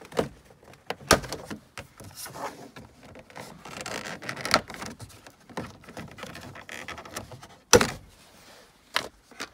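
Plastic interior door trim panel on a 1999–2007 Chevy Silverado being pried off by hand: a run of clicks, snaps and scraping as its clips let go and the panel knocks against the door. The loudest knock comes near the end.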